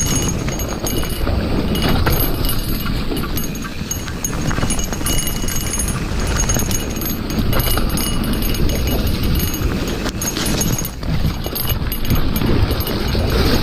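Santa Cruz Heckler mountain bike riding fast down a wet gravel trail: a steady rush of tyre and trail noise with frequent knocks and rattles as the bike bounces over the bumps.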